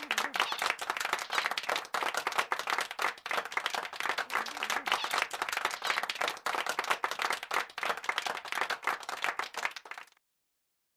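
Applause, many hands clapping at a steady density, cutting off suddenly about ten seconds in.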